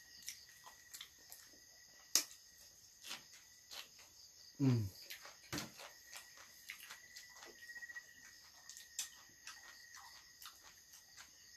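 Close-up eating sounds: scattered small clicks and smacks of chewing and handling food. A steady cricket chirr runs behind them. About halfway there is a short low falling voice sound, like an 'mm'.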